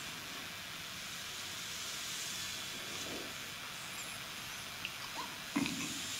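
Chalk drawing lines on a chalkboard: soft scraping strokes over a steady hiss, with a louder stroke about five and a half seconds in.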